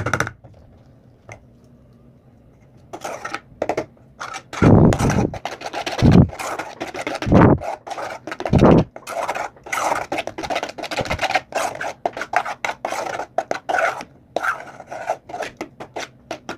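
Metal spoon stirring and scraping a thick flour-and-white-glue paste around a metal saucepan in quick, irregular strokes, with a few louder, deeper scrapes in the middle. The stirring starts after about three quiet seconds.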